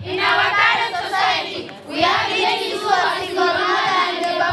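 A group of schoolchildren singing together in unison, with a brief break a little under two seconds in before the singing resumes.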